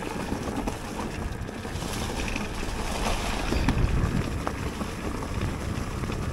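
Wind rushing over the microphone while a mountain bike is ridden, with trail noise from the bike and a few sharp clicks and rattles.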